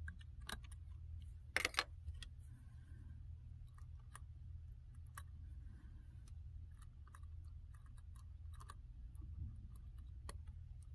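Small scattered clicks and taps of tweezers and fingers working on the internals of an opened 13-inch MacBook Pro, with a sharper double clack about a second and a half in. A low steady hum runs underneath.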